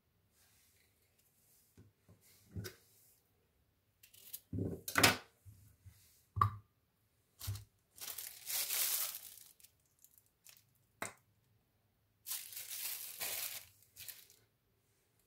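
Crinkling and rustling of a plastic piping bag of cream cheese as it is picked up and squeezed, in two longer stretches in the second half, after a few short knocks and clicks from handling food on a plate.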